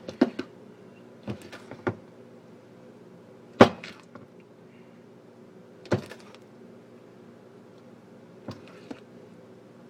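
Irregular knocks and clunks from hand-stirring brownie batter in a mixing bowl: the utensil hits the bowl and the bowl shifts against the counter. The loudest knock comes about halfway through, with fainter ones near the start and end, over a steady low hum.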